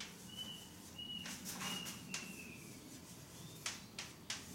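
Chalk writing on a blackboard, faint: the chalk squeaks in several short high notes, one longer one sliding slightly down in pitch around the middle, between scratchy strokes and light taps of the chalk.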